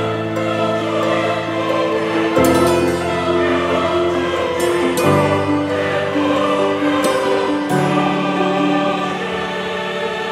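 Background music of slow, sustained chords that change every two to three seconds.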